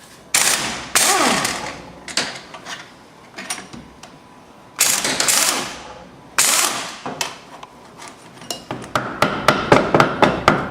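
Pneumatic tool run in four short bursts of about a second each, one winding down with a falling whine, followed near the end by a quick run of sharp clicks.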